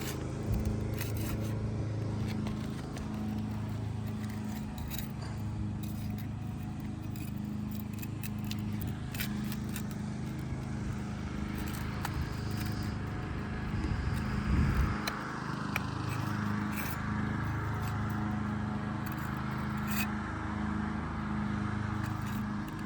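Thin trowel tool scraping and prying under asphalt roof shingles to break the adhesive seal between the layers, heard as scattered light scrapes and clicks, over a steady low hum; a brief low rumble about fourteen seconds in.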